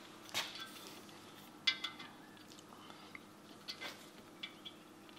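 Scattered light metallic clinks and taps, about half a dozen, each ringing briefly, as an inside micrometer is worked in the main bearing tunnel of a Holden 304 V8 block against the main caps to check the bore for round. A faint steady hum runs underneath.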